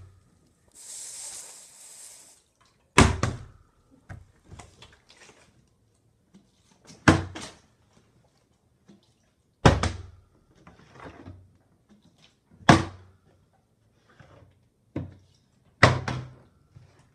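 Partly filled plastic water bottle flipped and landing on a wooden table: five hard thuds about every three seconds, each followed by a few lighter knocks.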